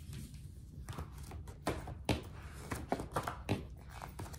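Irregular light taps and knocks, about a dozen, starting about a second in: handling noise from a picture book being opened and its pages turned.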